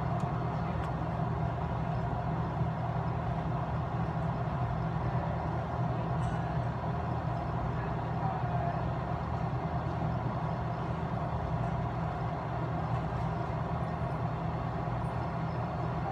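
Compressor running with a steady, even hum.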